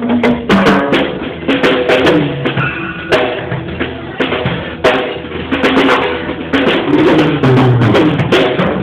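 Drum kit played: a run of quick hits on drums and cymbals, with pitched music and a bass line underneath.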